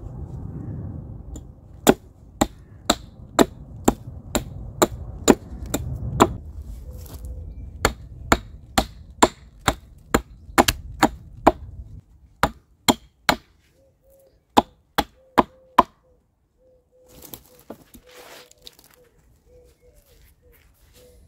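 Hatchet chopping the end of a wild cherry branch into a point on a tree-stump chopping block: a long run of sharp wooden strikes, about two a second, that stops about 16 seconds in.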